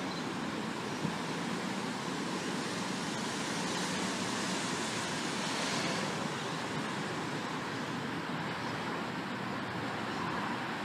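Steady road traffic noise with wind on the microphone, swelling slightly about five to six seconds in as a vehicle passes.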